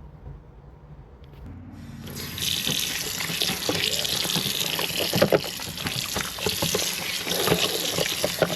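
Water running from a kitchen tap into a sink or bowl of ribs, starting about two seconds in, with splashing as the ribs are washed by hand.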